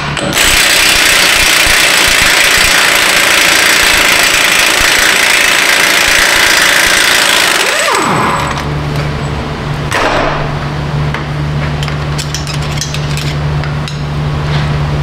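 A power tool runs for about eight seconds with a loud high whirring hiss, then winds down in a falling whine. A steady low hum carries on after it.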